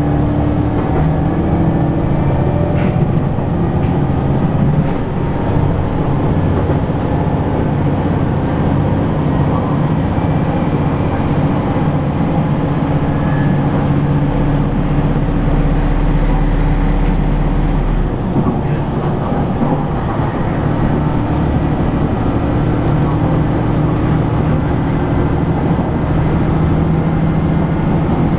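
JR Shikoku 2000 series diesel railcar heard from inside the passenger cabin while running: a steady underfloor diesel engine drone over the rumble of the wheels on the rail, with a faint high whine. The engine note changes about eighteen seconds in and settles back a few seconds later.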